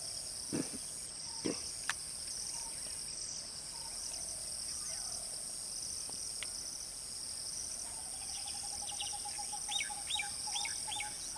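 Outdoor insect chorus: a steady, high, pulsing buzz in two bands, with birds calling over it. A rapid trill comes in about eight seconds in, followed near the end by a run of short falling chirps. Two brief low thuds sound in the first couple of seconds.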